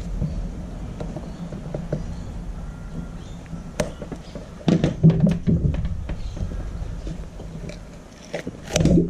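Utility knife scraping and clicking along the glued edge of a rubber fin foot pocket on a carbon fin blade, as the pocket is cut and pried away. There is a cluster of knocks and scrapes about five seconds in and another near the end, over a steady low hum.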